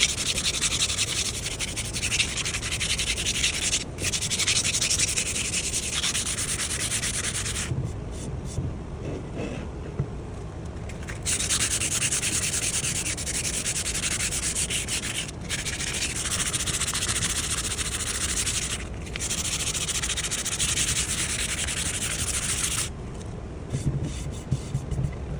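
Sanding the old wooden handle of a Japanese timber axe (masakari) to strip off years of grime: a steady scratchy rasp in long spells with brief stops, easing off for a few seconds about eight seconds in and again near the end.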